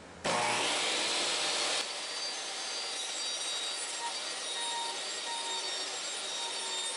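Table saw switched on: the motor starts suddenly with a whine rising as the blade spins up, then runs steadily, a little quieter from about two seconds in.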